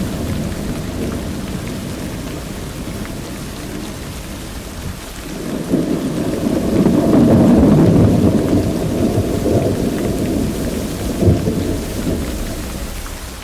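Steady rain falling with rolling thunder: a low rumble swells about halfway through, with a sharp crack a few seconds later, then dies away near the end.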